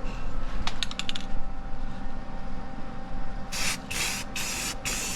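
Aerosol spray can hissing in a series of short bursts, starting about three and a half seconds in, after a few light clicks about a second in.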